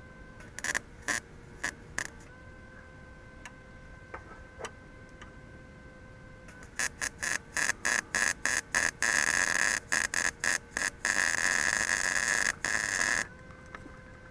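Electric arc welding on steel: a few short tack bursts about a second in, then from about halfway a quick series of short arc bursts that run into two longer continuous welds, stopping about a second before the end.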